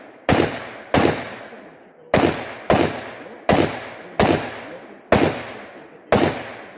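Steyr AUG rifle firing single aimed shots in an irregular string, eight in a few seconds and spaced about half a second to a second apart. Each shot is sharp and loud, followed by a long fading echo.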